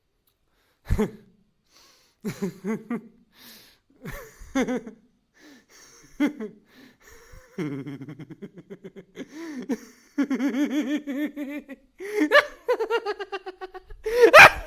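A person laughing for a sound-effect take: short, separate snickers and gasps at first, building about halfway into continuous rhythmic laughter that grows louder near the end.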